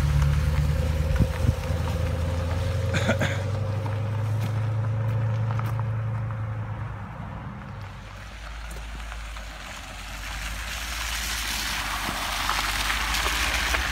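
Dodge Challenger R/T's HEMI V8 running as the car pulls away, its low engine note fading over several seconds. Near the end the car comes back, with a rising hiss of tyres on the wet gravel driveway and the engine rumble building again.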